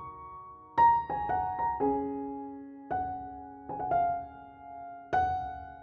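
Background music: a gentle piano melody, with notes and chords struck about every second and left to ring.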